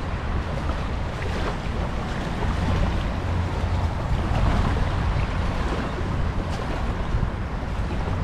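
Wind buffeting the microphone, a steady low rumble, over the wash of waves on the beach.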